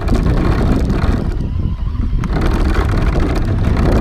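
Wind buffeting the microphone: a loud, steady rumble with rushing noise above it.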